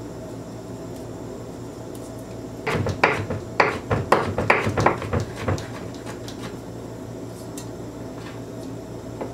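Chef's knife chopping fresh rosemary leaves on a wooden cutting board: a quick run of about ten sharp chops starting a little under three seconds in and lasting about three seconds.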